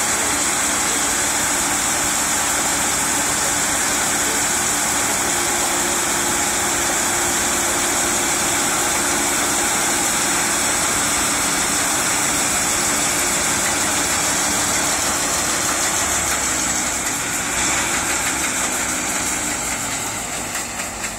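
Combine harvester running steadily, its engine and unloading auger going while grain pours from the spout into a trailer. The sound drops a little and changes pitch about sixteen seconds in.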